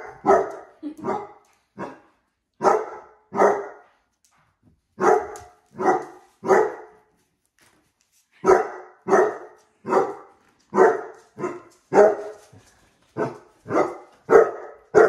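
A basset hound barking at a red foil heart balloon, about twenty loud single barks in quick runs with brief pauses between the runs.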